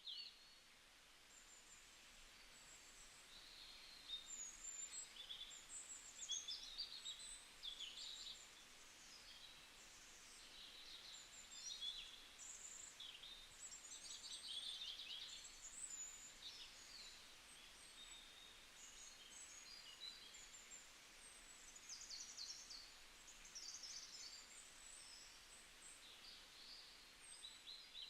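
Faint chirping of small birds: many short, high calls scattered throughout over a low background hiss.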